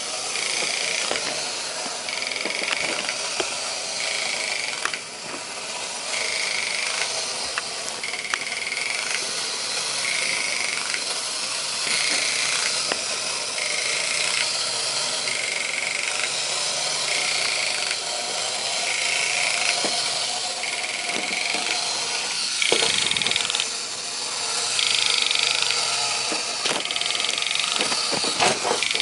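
Clockwork motor of a 1960s Marx wind-up tiger toy running as it walks: a steady whirring with a clicking pulse about once a second, the clicking made to resemble the tiger's growl. A single knock about three-quarters of the way in.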